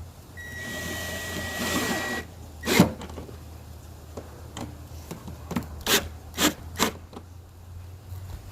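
Workshop tool noise on a metal leaf-vacuum elbow: a short whirring with a steady high whine for about two seconds, then sharp knocks, the loudest about three seconds in and four more quick ones near the end.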